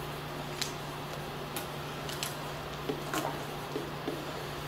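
Marker writing on a whiteboard: a few faint, short scratchy strokes over a steady low hum.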